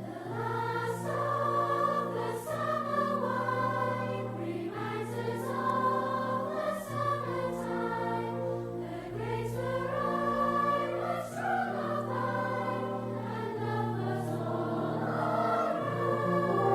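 Slow choral music, long held chords over a steady low note.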